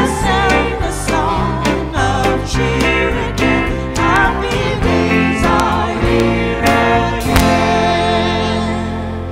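Live band music: a woman singing with vibrato over bass and strummed acoustic strings. About seven seconds in the band hits a final chord that is held and begins to fade as the song ends.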